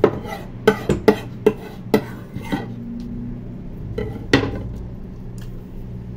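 Metal utensils clinking against a stainless steel mixing bowl and knocking on a wooden board: about eight sharp clinks, most in the first two and a half seconds and the loudest a little over four seconds in.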